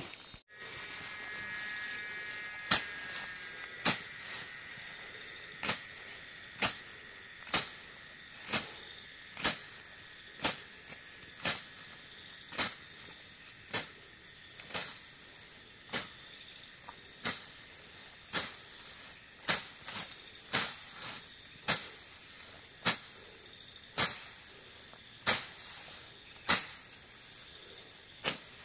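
Machete strokes slashing through tall grass, a sharp cut about once a second, repeated steadily.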